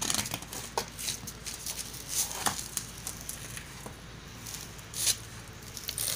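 Gritty bonsai soil mix scooped by hand from a tray and trickled into a plastic pot: irregular scraping and crunching, with grains pattering into the pot.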